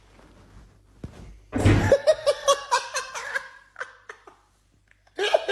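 A person laughing hard in a run of quick repeated bursts, starting about a second and a half in, with another burst of laughter starting near the end.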